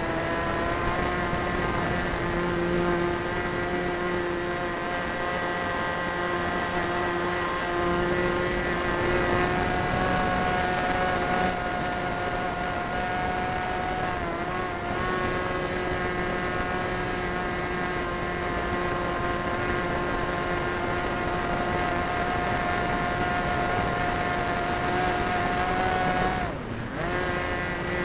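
Super Tigre 90 two-stroke glow engine running at high, nearly steady speed, heard from on board the RC plane with its propeller, in a constant high-pitched drone. Near the end the pitch and loudness dip sharply for a moment and then come back up.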